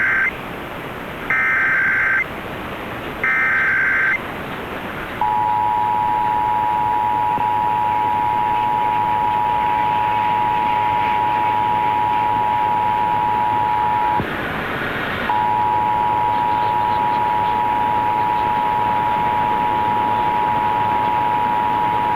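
Emergency Alert System broadcast test over AM radio. First come the short harsh warbling bursts of the digital SAME header: the tail of one, then two more. Then the EAS two-tone attention signal (853 and 960 Hz together) holds steady for about nine seconds, drops out into a second of static about fourteen seconds in, and resumes, all over steady radio hiss.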